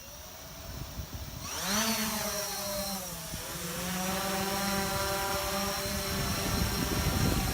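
Small battery-powered toy aircraft's rotors buzzing: the motors spin up with a rising whine about a second and a half in, dip briefly, then hold a steady buzz.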